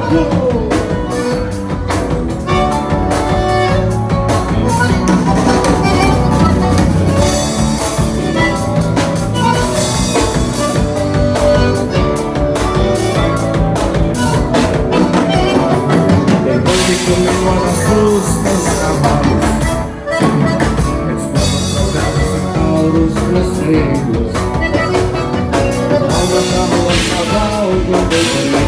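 Live band music led by a piano accordion, with a drum kit and an electric bass guitar, playing continuously.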